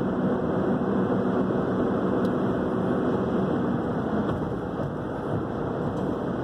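Steady road noise inside a car's cabin at highway speed: tyre rumble and engine drone, with a low hum that fades about three and a half seconds in.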